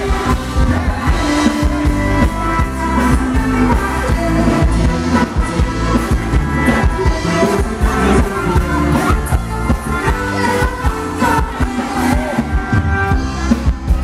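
A live band playing loud Thai ramwong dance music with a steady beat and sustained melodic lines.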